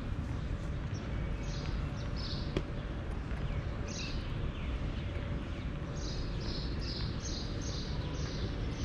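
A bird calling with short, high, downward-sweeping chirps over a steady low rumble: a few scattered notes at first, then a quick run of about six near the end.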